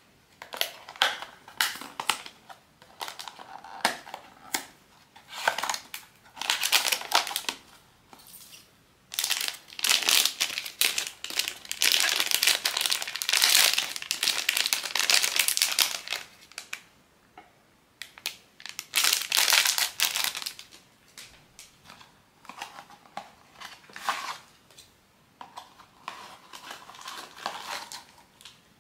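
Pop Mart blind-box packaging being unwrapped by hand: plastic wrapping crinkling and crumpling in irregular bursts with short pauses. The longest, loudest stretch comes about nine to sixteen seconds in.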